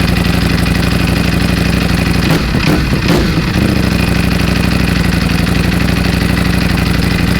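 Ducati 1,100 cc V4 sport bike with an Akrapovic full titanium exhaust system idling loudly, with one quick throttle blip about two and a half seconds in before it settles back to idle.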